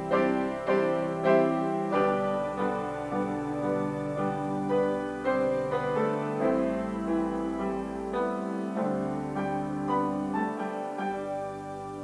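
Slow solo piano music, with notes and chords struck about one or two a second and left to ring, easing into a held chord near the end.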